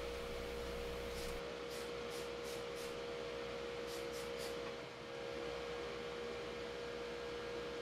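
Steady background hum with one constant tone and a faint even hiss, broken by a few faint light ticks about one and a half seconds in and again around four seconds.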